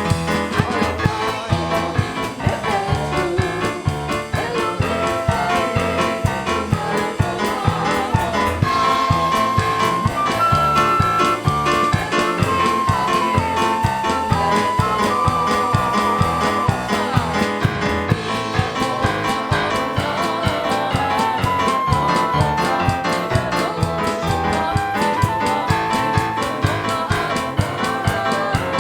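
Worship music with piano or keyboard, a steady beat and a melody of held notes.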